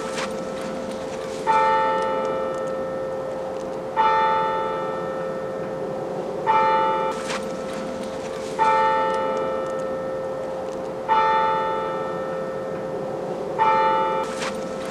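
A deep bell tolling slowly, six strikes about two and a half seconds apart, each ringing out and fading, over a steady low drone. A short whoosh sounds now and then.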